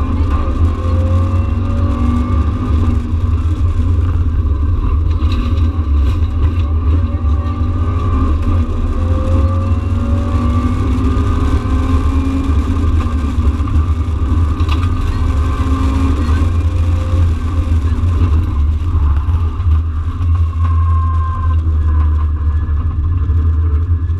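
Subaru Impreza rally car's flat-four engine heard from inside the cabin: a loud, heavy rumble whose pitch rises several times as the car accelerates.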